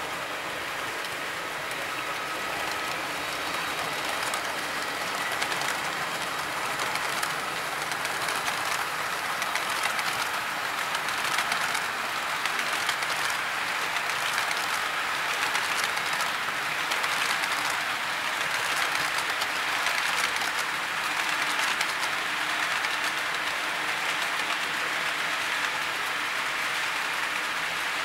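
Model railway freight train running past: the locomotives' small electric motors whining faintly over a steady rattle of metal wheels clicking across the track. It grows louder over the first few seconds, then holds steady.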